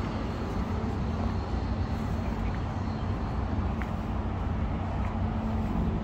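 Steady low rumble of outdoor city background noise, with a few faint, brief high-pitched chirps.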